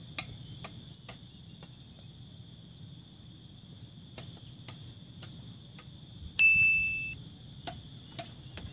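Steady high-pitched insect chorus with scattered sharp clicks. About six and a half seconds in, a single high ding rings out and fades in under a second.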